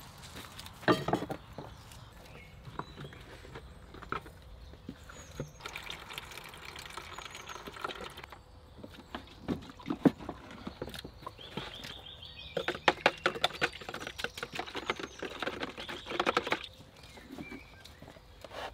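Water running from the tap of a collapsible plastic water container into a plastic washing bowl, in two spells, mixed with clicks and knocks from handling the plastic container and bowl.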